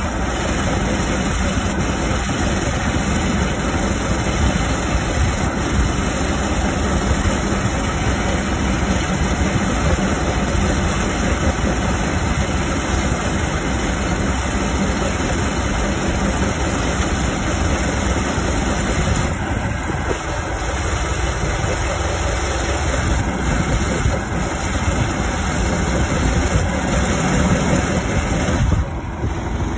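Gas-engine ice auger on a sled-mounted frame running steadily under load as it drills a hole through lake ice.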